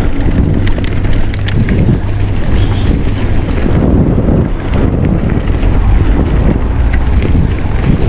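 Mountain bike riding fast over a dirt trail: steady wind buffeting the microphone over the rumble of the tyres, with scattered light rattles and clicks from the bike.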